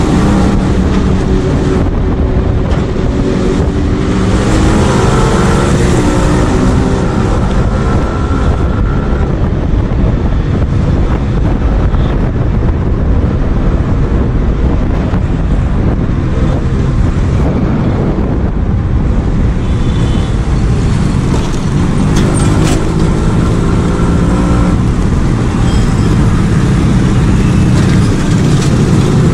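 Yamaha RX 135's two-stroke single-cylinder engine on the move in traffic, rising in pitch twice as it accelerates, with wind noise on the microphone.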